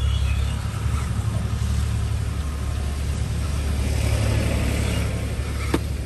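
1/10-scale RC Toyota Land Cruiser crawler driving over sand and up onto loose bricks, its small electric drive motor and gears running steadily, with one sharp knock near the end as the truck rides onto the bricks.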